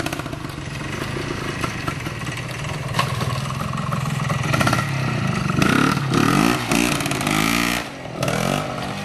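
Vintage trial motorcycle engine running at low speed under load as the bike picks its way over rough ground. The revs rise and fall several times through the middle as the rider blips the throttle.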